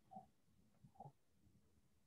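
Near silence on a call line, with two faint, brief soft sounds about a quarter-second and a second in.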